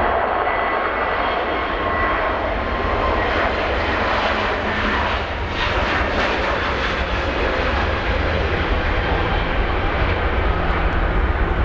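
Airbus A320neo's Pratt & Whitney PW1100G geared turbofan engines at takeoff thrust during the takeoff roll and lift-off: steady loud jet noise, with high whining tones that fade out over the first couple of seconds and a low rumble that grows toward the end.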